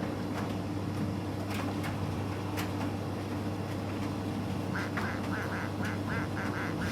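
Miele T5205 tumble dryer running with its door open: a steady low hum with a few sharp clicks, then, from about two-thirds through, a fast repeating squeak, about four a second.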